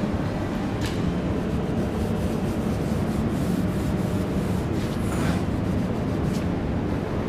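Tack rag being wiped over a car's painted door panel, a soft rubbing with a few brief scuffs, over a steady low background hum.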